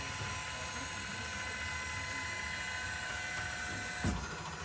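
Electric lift motors lowering a toy hauler's power bed and fold-down chairs, running with a steady whine. About four seconds in there is a sudden thump and part of the whine cuts off, as the bed comes to its stop while the chairs keep going down.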